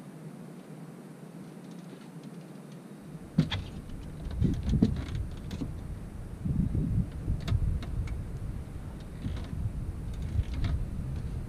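A faint steady hum, then a sharp knock about three seconds in, followed by irregular low thumps, rumbles and clicks: an angler moving about a boat and handling a fishing rod at its holder.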